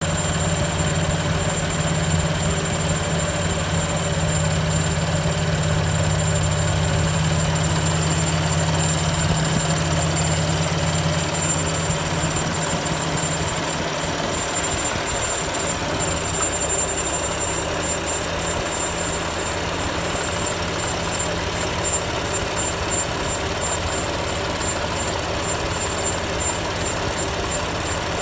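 BMW M4's twin-turbo straight-six idling, with a thin high-pitched squeak over it. The engine note drops about halfway through, and in the second half the squeak breaks into rapid pulses.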